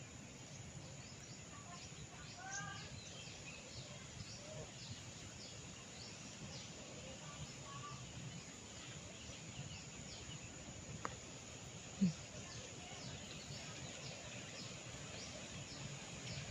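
Faint background of many small birds chirping over a steady low hum. A single short, low sound, louder than the rest, comes about twelve seconds in.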